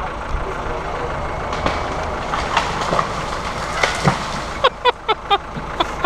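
Land Rover engine running steadily while it hauls on a tow strap to drag down a half-fallen tree, with sharp cracks and knocks as the tree breaks free and falls. The loudest knocks come in a quick cluster near the end.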